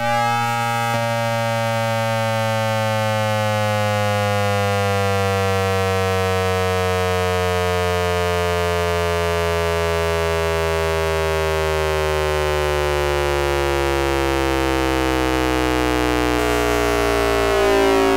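A Hanshin 5500 series train's VVVF inverter, heard as electrical noise picked up by an AM radio in the motor car, with a synthesized tone at the inverter's fundamental frequency laid over it: a chord of steady electronic tones all gliding slowly downward as the motors slow. Near the end the upper tones break up and shift as the inverter changes its switching pattern.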